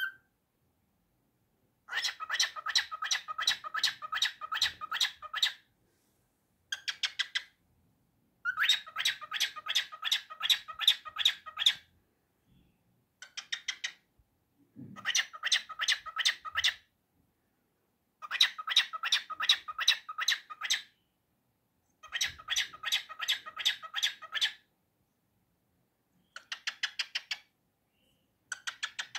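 Cockatiel squawking in bursts of rapid, evenly repeated harsh calls, several a second, each burst lasting one to three seconds with short silent gaps between.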